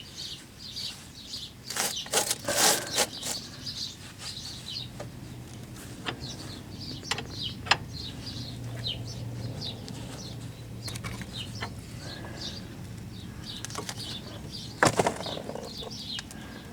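A socket wrench turning a nut in short strokes, with clicks, ticks and metal knocks of the tool. The nut is being tightened a further roughly 160 degrees past 15 foot-pounds.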